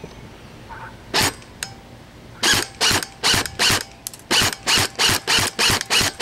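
G&G airsoft gun firing single shots on semi-auto: one shot, then a quick run of four and a run of six, about three shots a second.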